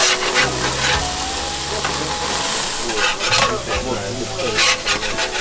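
Meat sizzling and crackling on a hot grill.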